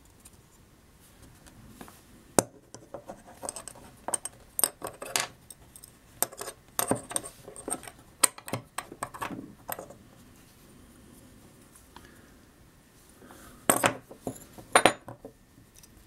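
Scattered light metallic clicks and clinks of a disassembled folding knife's steel parts being handled and set down on a wooden table, among them the blade, a loose caged pivot bearing ring and small screws, with a louder cluster of clicks near the end.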